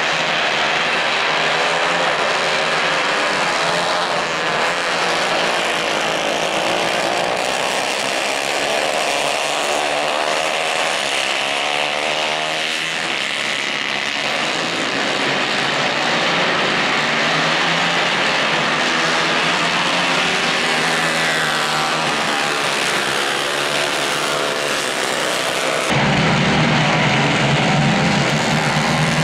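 Several Kayak 150-class racing kart engines running at race pace, their revs rising and falling together as the karts pass and brake and accelerate through the corners. About three seconds before the end the sound jumps suddenly to a louder, deeper mix.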